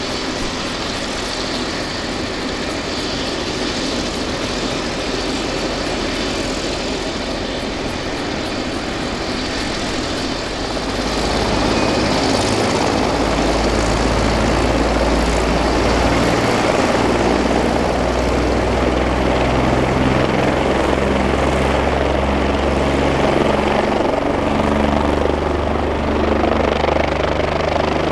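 Bell 427 helicopter running on the ground, its twin turboshaft engines and rotors turning after engine start. About eleven seconds in it grows louder and a deep low hum comes up under the turbine noise.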